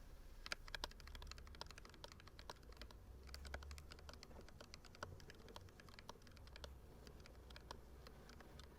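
Faint typing on a modded Redragon Kumara mechanical keyboard with Akko CS Jelly Black 50 gf linear switches, a tape mod and lubed, taped stabilizers. It gives a steady run of irregular keystroke clicks, several a second.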